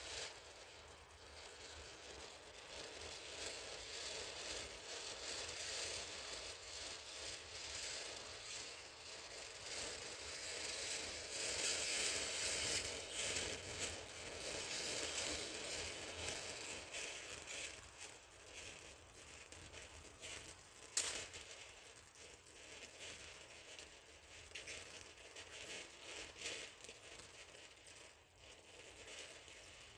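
Lightning Hero ground fountain firework spraying sparks with a fine hissing crackle. The crackle swells through the middle, then eases off, with one sharp crack about two-thirds of the way through.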